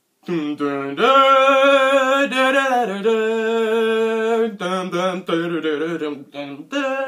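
A man singing unaccompanied: long held notes with a wavering pitch, breaking into shorter notes about four and a half seconds in.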